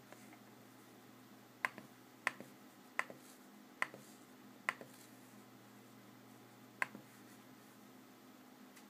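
A computer mouse button clicking six times at uneven intervals. Each is a sharp press click followed quickly by a softer release click, over a faint steady low hum.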